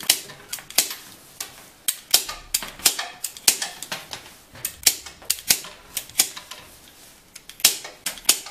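Pruning shears snipping off the protruding willow-rod ends on a freshly woven basket base. The cuts come as a run of sharp clicks, about two a second and unevenly spaced.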